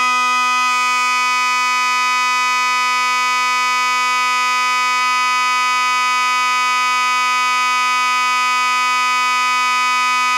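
Fire alarm horn sounding one steady, unbroken tone.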